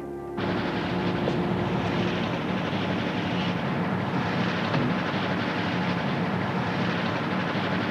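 Moving train running, a steady rumbling rattle that cuts in suddenly about half a second in and carries on evenly.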